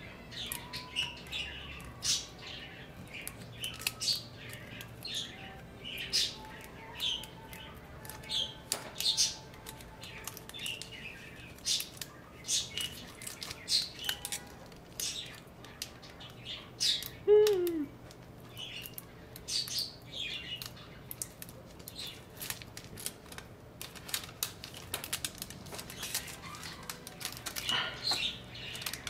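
Irregular crackling and ticking as an adhesive-backed MacBook Air keyboard backlight sheet is peeled away from the keyboard, about one or two crackles a second. There is a brief falling squeak a little past halfway.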